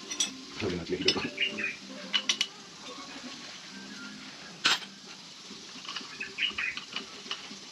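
Metal tools and parts clinking and knocking during motorcycle workshop work: a quick run of light clinks, one sharp strike a little before the five-second mark, then a few more light clinks near the end.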